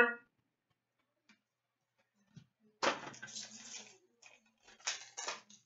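Stiff trading cards sliding and rustling against each other in the hands as a stack of hockey cards is flipped through. There are two short bursts, the first about three seconds in and lasting about a second, the second briefly near the end.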